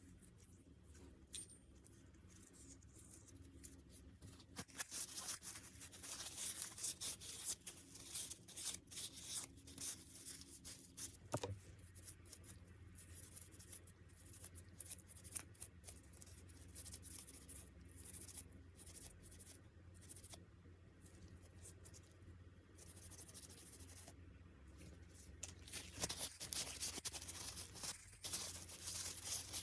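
Scraping and rubbing with many light clicks from hands working on small parts, busier near the start and again near the end, with one sharper knock about eleven seconds in.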